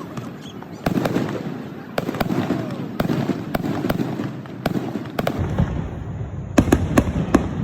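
Fireworks going off: a string of sharp bangs and crackling reports at irregular intervals, ending in a quick cluster of several bangs near the end.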